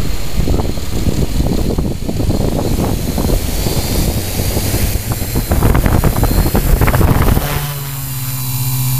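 Q800 multirotor drone's motors and propellers running up on the grass, the downwash buffeting the onboard camera's microphone with a rough, crackling rush of air. About seven and a half seconds in, as it lifts clear of the ground, the noise gives way to a steady propeller hum.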